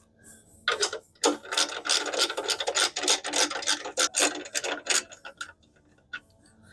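Hand socket ratchet clicking through quick repeated swings, about four a second, as bolts are tightened on the reel mower's bed knife. It stops about five and a half seconds in.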